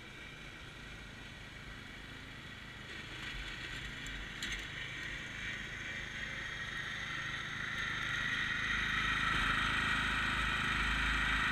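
Riding lawn mower engine running as the mower drives over rough ground, a steady engine drone that grows louder over the last few seconds.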